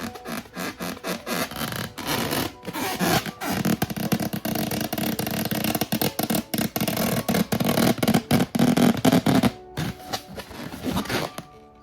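Cartoon-style pooping sound effect: a long run of rapid, irregular sputtering crackles, loudest from about four seconds in, breaking off briefly near the end before quieter sputters.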